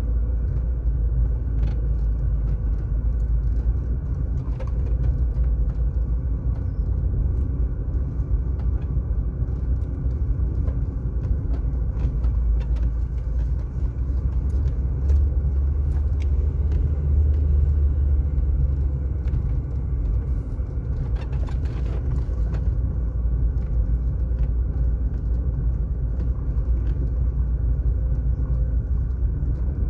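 Steady low rumble of a car driving on smooth asphalt: road and engine noise, with faint scattered ticks and a brief rush of higher noise a little over twenty seconds in.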